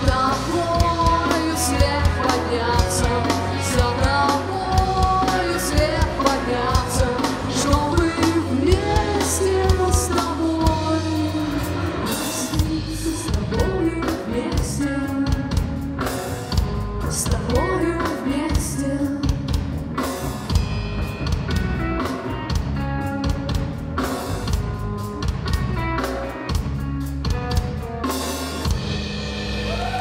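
Live rock band playing: drum kit, electric guitar and bass guitar, with singing over them.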